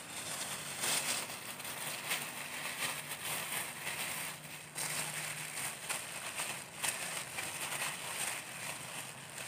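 Thin clear plastic disposable gloves crinkling and rustling as they are pulled on and worked over the hands, a quick run of small crackles.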